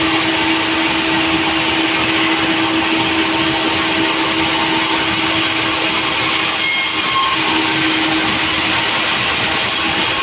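Sawmill saw running steadily, a loud even mechanical noise with a constant hum.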